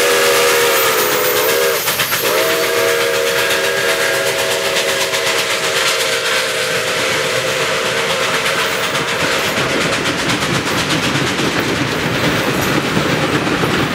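Nickel Plate Road 765, a 2-8-4 Berkshire steam locomotive, sounding its chime whistle: a blast that sags in pitch and breaks off about two seconds in, then a long blast that fades out past the middle. Under and after it, the steady hiss and clatter of the locomotive and its passenger cars rolling past.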